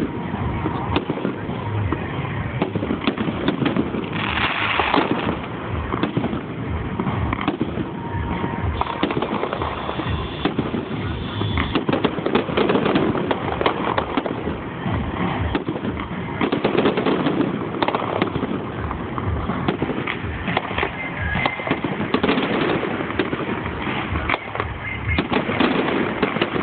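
Fireworks display in a continuous barrage: bangs and crackling follow each other several times a second with no pause, recorded through a phone microphone that cuts off the highest frequencies.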